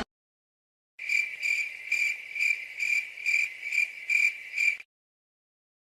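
Cricket chirping sound effect: a regular run of about nine high chirps, a little over two a second, starting about a second in and stopping abruptly just before the end.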